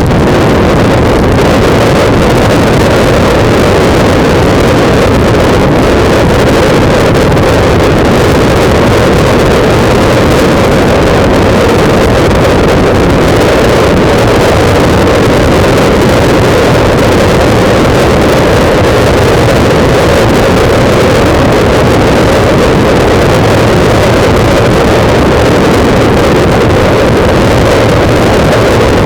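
Loud, steady wind buffeting on a motorcycle-mounted camera's microphone while riding, with the bike's engine running beneath it.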